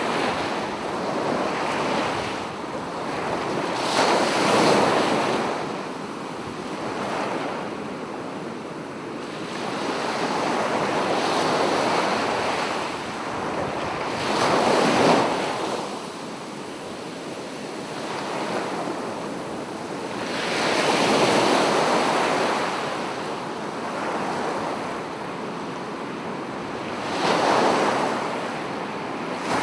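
Ocean waves breaking and washing up a sandy shore, surging and receding in slow, uneven swells every few seconds, with a steady wind hiss underneath.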